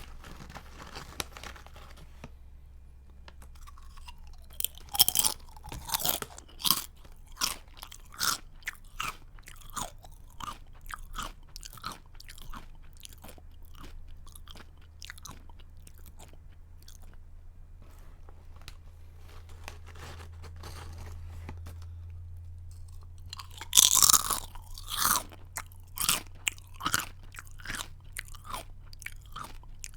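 A person biting into and chewing a crunchy snack close to the microphone: a loud crunchy bite about five seconds in, then crunching chews roughly one or two a second that grow quieter, and a second loud bite about three-quarters of the way through followed by a few more crunchy chews.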